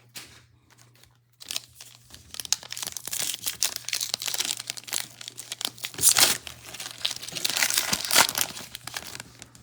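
Foil trading-card pack wrapper being torn open and crinkled: after a quiet second or so, a run of crackling and tearing, loudest about six and eight seconds in.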